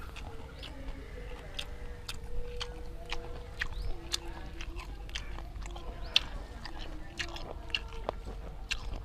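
Close-miked chewing of a mouthful of grilled apple snail, with frequent irregular wet mouth clicks and smacks.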